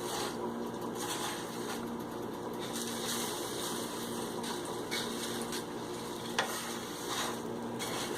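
A spatula stirring and scraping thin poha and puffed rice as they dry-roast in a pan, over a steady low sizzle of the frying, with a few light taps of the spatula against the pan.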